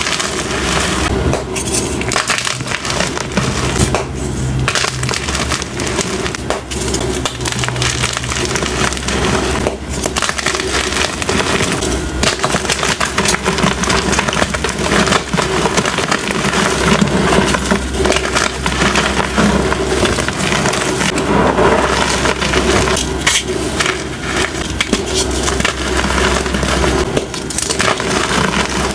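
Hands crushing and crumbling blocks of gym chalk, dyed and plain, in the palms: a dense, continuous crunching and crackling of the chalk breaking apart.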